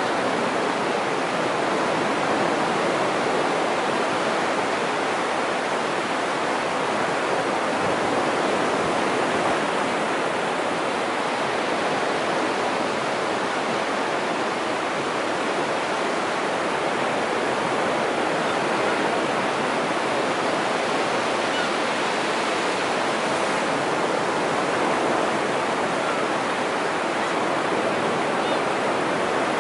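Low surf breaking and washing up a flat sand beach, a steady hiss of water.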